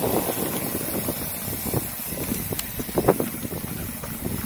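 Mountain bike rolling along a dirt singletrack, its tyres and frame rattling and knocking over the bumps, with wind rushing on the microphone. A sharper knock comes about three seconds in.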